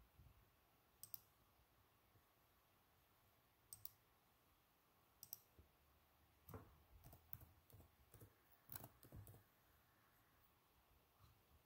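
Faint computer mouse clicks, three single clicks a few seconds apart, then a quick run of keystrokes on a computer keyboard as a word is typed.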